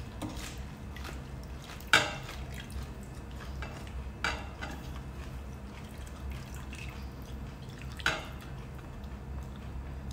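Metal ladle and spoon clinking against a ceramic soup bowl as soup is served, with small liquid splashes. There are three sharp clinks with a short ring, the loudest about two seconds in.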